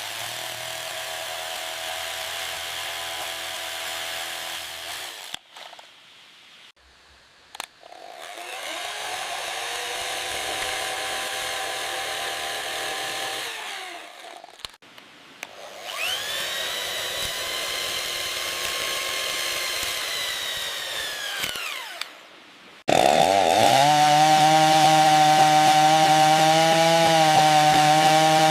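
Small electric grinder motor running with a steady whine while cutting bamboo, in four runs of about five to six seconds each with short pauses between them. In the third run it spins up and winds down. The last run, about 23 seconds in, is the loudest.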